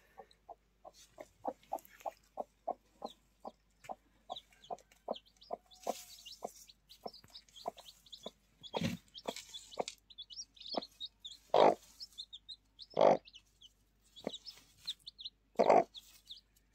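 Mother hen clucking in an even run of short clucks, about three a second, with newly hatched chicks peeping high over it. Later come several louder, harsher clucks.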